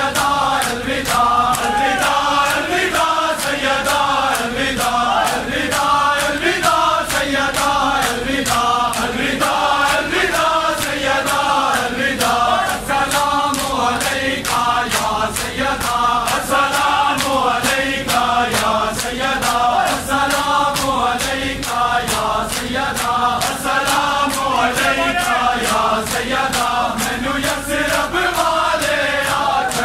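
Men chanting a noha (Shia lament) together while beating their chests in matam, the hand strikes making a steady beat of about two a second under the chant.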